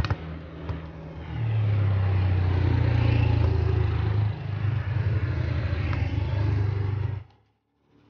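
Motor scooter engine running at a steady speed as it rides along the road, a loud low hum that cuts off abruptly about a second before the end. A sharp tap, likely the football on a foot, comes right at the start.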